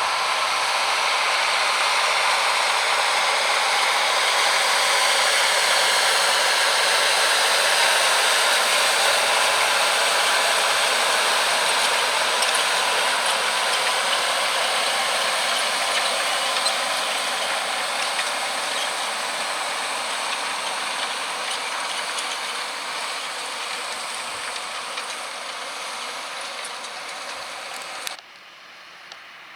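John Deere 6195R tractor working past with its Kverneland plough and Packomat furrow press: a steady mechanical rattle and hiss, loudest about eight seconds in, then fading slowly as it moves away. It cuts off suddenly near the end.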